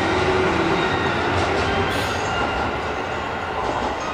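JR Shikoku 7200 series electric train running along the platform: a steady rumble of wheels on rails, with a faint motor whine near the start.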